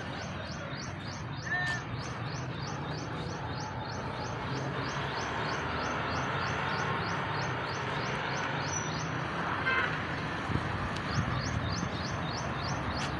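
Outdoor background noise: a steady low rumble with a high chirp repeated evenly about three times a second throughout, and a single higher bird-like chirp early on.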